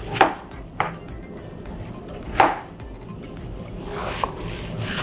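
Kitchen knife chopping through cucumber onto a plastic cutting board: four separate knife strikes, the loudest about two and a half seconds in and a lighter one near the end.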